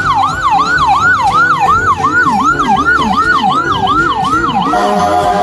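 Toy ambulance's electronic siren, a fast repeating wail of about three sweeps a second. A second, lower siren sound joins about two seconds in, and near the end the pattern changes to steady tones.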